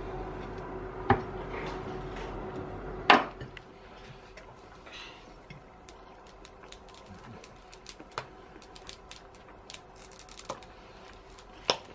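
Kitchen knife and china plates knocking on a wooden chopping board: a sharp knock about a second in and a louder clatter about three seconds in, over a steady hum. After that only a few faint, light clicks.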